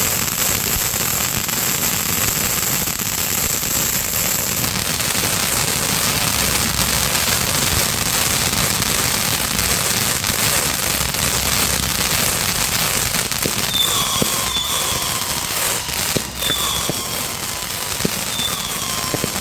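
Fireworks going off in a continuous, dense crackling and popping. A few short falling whistles come in the last five seconds.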